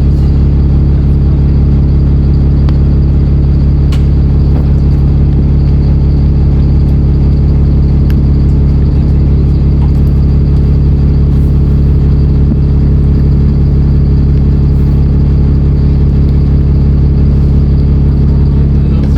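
Alexander Dennis Enviro 400 double-decker bus engine running at a steady, unchanging pitch: a loud, constant low drone.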